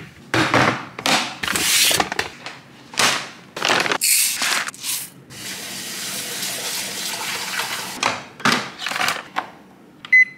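Kitchen tap running steadily into a rice cooker's inner pot for a few seconds, between several short bursts of handling noise from the pot. Near the end a Zojirushi NS-LGC05 rice cooker gives one short beep as a button is pressed.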